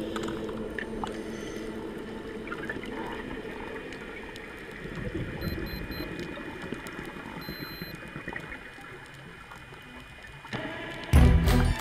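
Muffled underwater sound through a camera housing: the low hum of a diving scooter's motor fading over the first couple of seconds, and a diver's exhaled bubbles rushing out about five seconds in. Music comes in near the end.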